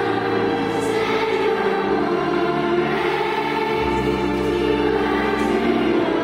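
Children's choir singing a Christmas carol in long held notes, with a low accompaniment underneath.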